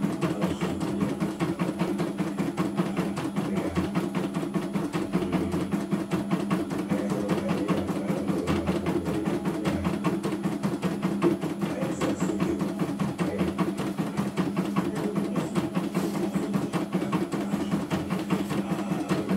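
CNY E900 computerised embroidery machine stitching a design, a rapid, even clatter of needle strokes over a steady motor hum as the hoop is driven back and forth.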